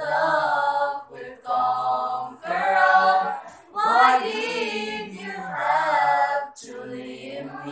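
A small mixed group of teenage girls' and boys' voices singing a pop ballad together a cappella, with no accompaniment, in sung phrases broken by short pauses for breath.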